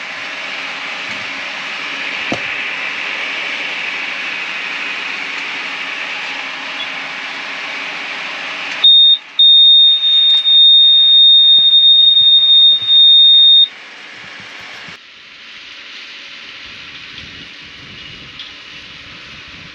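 Tractor and round baler running steadily, then about nine seconds in a loud, high-pitched continuous beep from the baler's alarm sounds for about five seconds, with a brief break near its start; after it the machinery is quieter.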